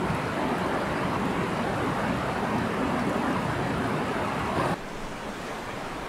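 Steady rushing of a large waterfall's falling water, dropping suddenly to a quieter level near the end.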